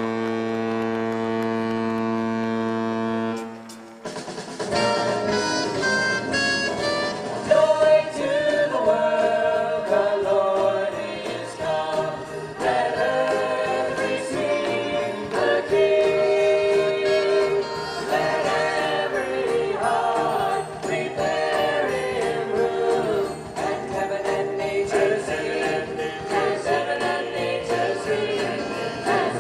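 Christmas show music: a long, steady low tone held for the first three seconds or so, then a festive song with sleigh bells, brass and a choir singing.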